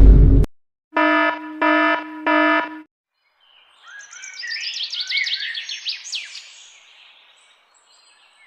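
Songbirds chirping in a quick run of rising and falling calls for about four seconds, from a birdsong sound-effect clip. It is preceded by the end of a loud noise burst that cuts off about half a second in, and by three identical electronic beeps.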